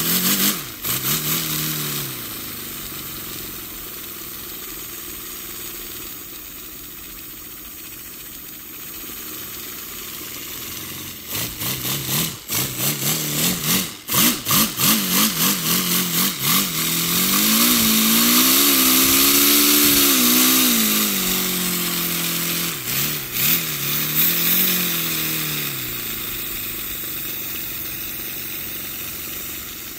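Paper four-cylinder radial engine running on compressed air, its exhaust buzzing over a steady hiss of air. The pitch rises and falls as the engine speeds up and slows down, with a choppy, stuttering stretch near the middle.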